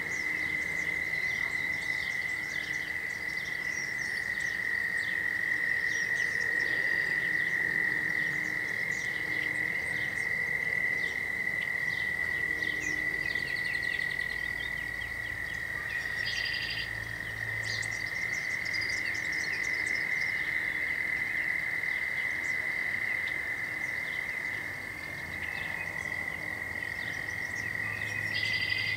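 A dense chorus of tree frogs trilling without a break, heard as one steady high-pitched drone. Short, higher calls are scattered over it, and a brief rapid pulsing call comes in about halfway through and again near the end.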